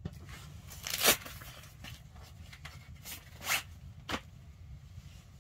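A few short rustling crackles, the loudest about a second in and three more a little past the middle, over a low steady hum.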